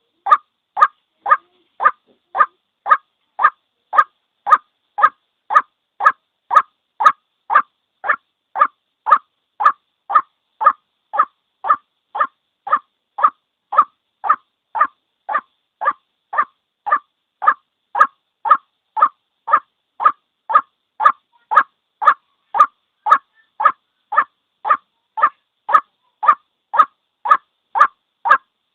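White-breasted waterhen's single call repeated over and over at a steady pace, about two short notes a second. It is a trapper's lure recording, played in a loop to draw the birds in.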